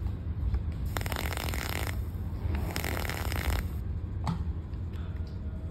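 Two spells of hissing, each about a second long, from a box-mod vape being puffed: air drawn through the firing coil and breathed out. A small click follows about four seconds in.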